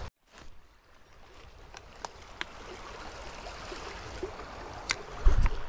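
Small creek running over rocks, a steady rush of water that comes in after a brief silence at the start. A few light ticks are scattered through it, and a low thump comes near the end.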